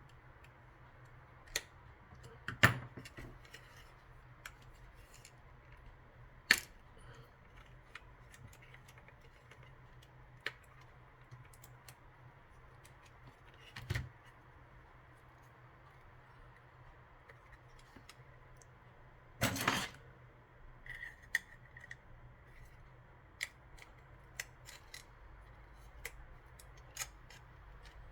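Small sharp clicks and taps of a flip phone's parts and tools being handled during disassembly, at irregular intervals, with a short scrape about two thirds of the way in, over a faint steady hum.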